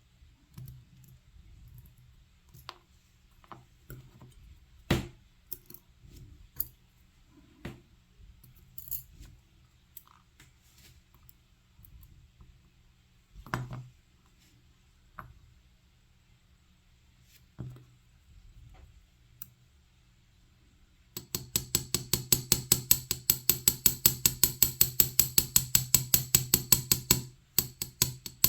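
Assa 700 lock being taken apart: scattered small clicks and knocks of pins and tools being handled. About three quarters of the way in comes a run of loud, sharp taps, about seven a second, lasting some six seconds.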